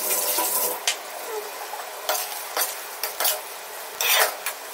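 A spatula stirring and scraping through thick sauce in a hot kadai, with repeated scrapes over a steady sizzle as a just-added cornflour slurry cooks into the gravy.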